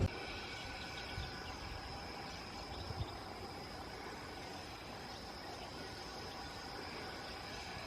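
Steady insect chorus of several even, unbroken pitches, with a couple of faint low thumps about one and three seconds in.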